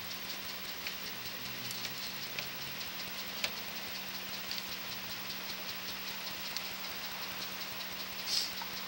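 Steady electrical hiss and low hum with rapid, evenly spaced faint ticking, from a sewer inspection camera system while the camera head sits still in the pipe. A brief louder hiss comes near the end.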